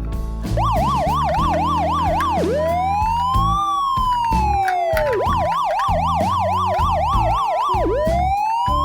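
Electronic police siren that alternates between a fast yelp, rising and falling about three times a second, and a slow wail that takes about two and a half seconds to rise and fall, playing over background music.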